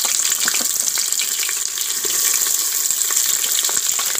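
Sliced onions sizzling in hot oil in a pressure cooker: a steady frying hiss with scattered small crackles.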